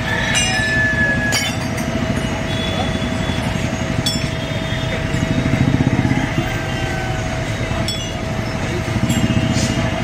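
Diesel engine of a JCB backhoe loader running steadily, with a constant high tone over its rumble and a handful of short metallic clinks.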